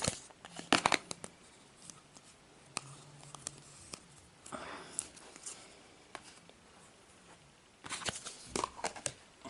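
Hands handling Play-Doh, tearing off a piece of dough, with scattered sharp clicks and crackles: a cluster about a second in and another near the end, and soft rustling between.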